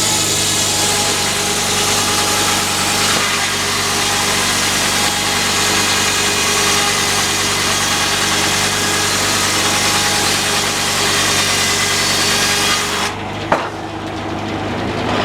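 Sawmill engine running steadily under load while the saw blade cuts through a log with a dense rasping hiss. The cutting noise stops suddenly near the end, leaving the engine running, with a single sharp click just after.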